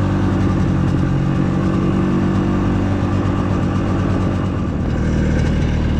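Engine of a rebuilt Tundra snowmobile running steadily under way, its pitch shifting slightly near the end.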